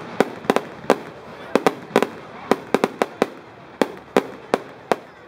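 Aerial fireworks going off in quick succession: a string of about fourteen sharp bangs, irregularly spaced at two to three a second.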